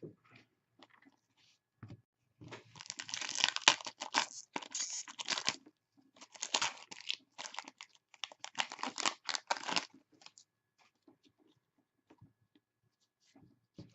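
Hockey trading cards and their packs being handled: irregular crinkling, rustling and scraping in several stretches, with small clicks between them.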